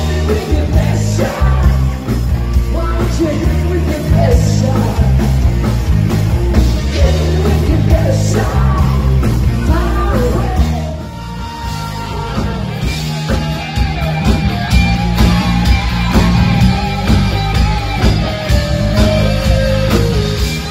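Rock and pop cover band playing, with a lead vocal over a driving bass line and drums. About halfway through the music briefly drops in level and carries on with a changed pattern.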